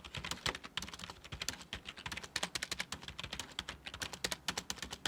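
Rapid, irregular typing on a generic office keyboard, a dense run of key clicks.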